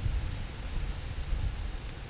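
Wind rumbling on the microphone over a steady outdoor hiss, with a single faint click near the end.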